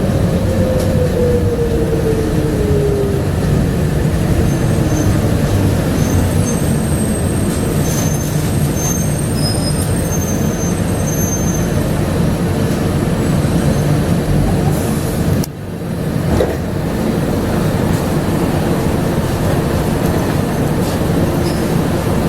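Bombardier APM100 rubber-tyred people-mover car running along its guideway, giving a steady, loud rolling and motor noise. Over the first few seconds a motor whine falls in pitch as the car slows, and the noise dips briefly about fifteen seconds in.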